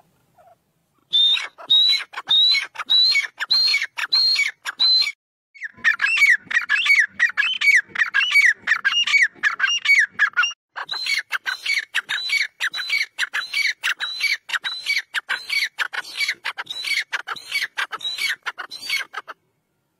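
Grey francolin (desi teetar) calling: a long series of loud, sharp, repeated notes, about two a second. After short breaks about five and about ten seconds in, the notes run lower and faster for a stretch, then high again until near the end.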